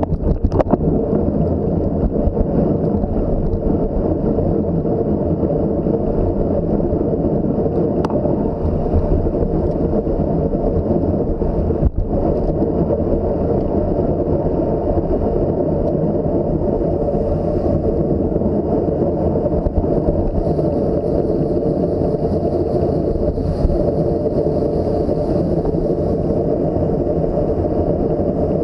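Wind rushing steadily over the microphone of a camera carried on a bicycle ridden at racing speed.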